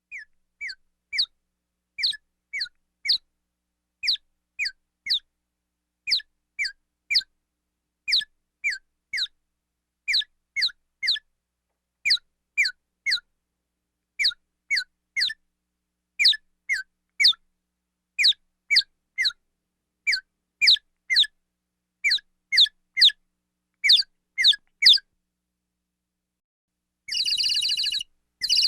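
Chirp sound effect: short, high chirps falling in pitch, in quick groups of two or three about once a second, with dead silence between. Near the end a buzzy alarm-like tone sounds for about a second, breaks off, and starts again.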